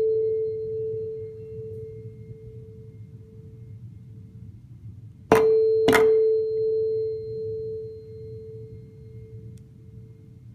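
Two tuning forks on wooden resonator boxes, tuned to 440 Hz and 441 Hz, ring together as one pure tone that swells and fades about once a second: the beat from their one-hertz difference. About five seconds in, both are struck again with a mallet, two sharp knocks half a second apart, and the beating tone rings on and slowly dies away.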